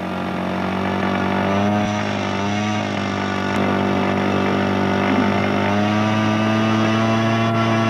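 Engines of a large radio-controlled model Avro Lancaster bomber droning steadily in flight. Only two of its four engines are running; the other two propellers just swivel freely. The pitch wavers slightly a couple of times.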